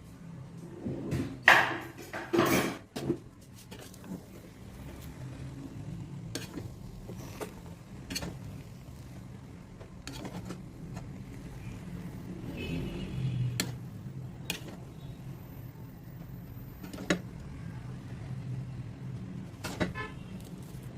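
Kitchen utensils knocking and clinking against cookware now and then, loudest twice a couple of seconds in, over a steady low hum.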